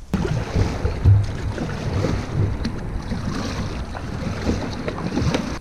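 Wind buffeting the microphone over the rush and splash of water as a kayak is paddled along with a double-bladed paddle.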